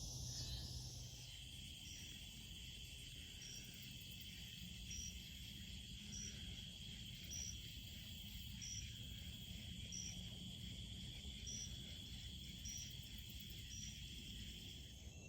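Evening insect chorus: a steady, continuous high trill with a short, higher chirp repeating about every second and a quarter.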